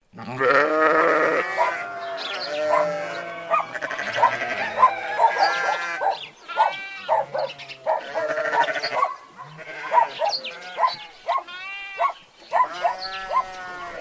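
A dense mix of farm animal calls overlapping one another, with bleating the most prominent.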